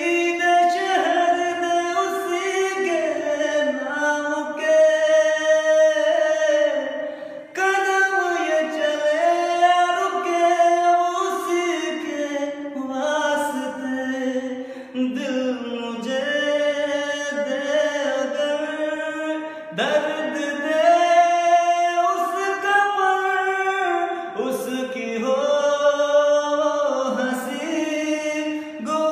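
A man singing unaccompanied in a high voice: long, held notes that bend and glide between pitches, with brief breaths between phrases.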